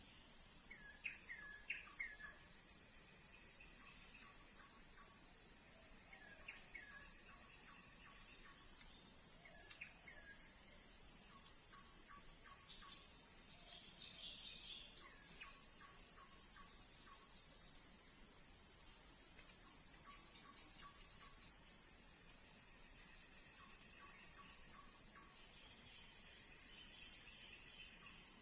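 Steady high-pitched insect chorus of crickets or cicadas, with a bird calling short chirping phrases every four or five seconds.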